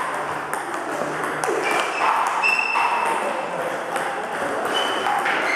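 Table tennis balls struck in quick succession during multiball practice: rapid sharp clicks of balls off the paddles and bouncing on the table, with a few short high squeaks among them.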